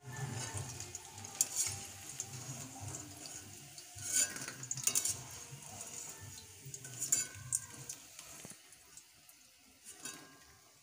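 Chicken pakoras deep-frying in hot oil in a steel wok, sizzling steadily, while a steel spatula scrapes and clinks against the pan several times as fried pieces are lifted out into a steel bowl.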